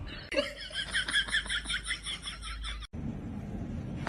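Rapid high-pitched laughter, a quick run of short giggles that cuts off abruptly about three seconds in.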